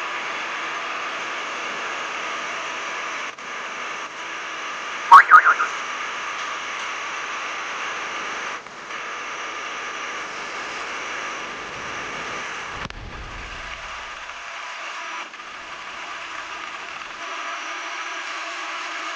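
Metal clanging: a piece of steel rings sharply about five seconds in, with three or four quick rings in succession, over a steady hiss of shop noise that cuts in and out several times.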